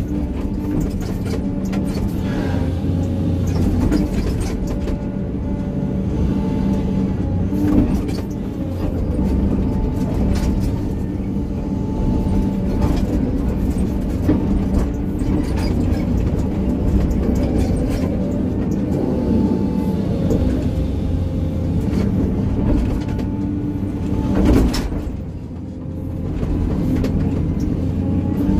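Hydraulic excavator's diesel engine running under working load, its pitch rising and falling as the hydraulics are worked during grading. A couple of sharp knocks are heard, one around the middle and one near the end.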